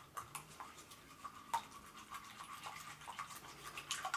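Eggs being beaten with a black plastic whisk in a glass baking dish: quiet, irregular light clicks and scrapes of the whisk against the glass, one a little louder about a second and a half in.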